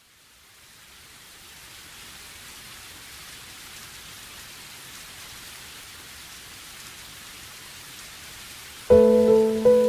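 A steady, even hiss fades in over the first two seconds and holds level. About a second before the end, background music comes in suddenly with loud, sustained notes.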